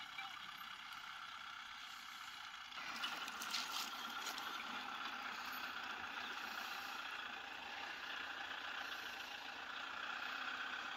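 Diesel engine of a Kubota M6040SU tractor running steadily, getting louder about three seconds in.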